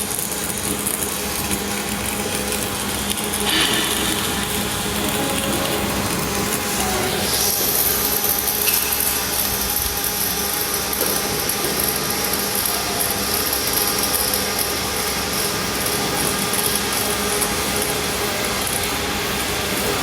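Robotic MIG arc welding on 10 mm carbon steel: a steady crackling hiss of the arc over workshop noise, growing brighter and hissier about seven seconds in.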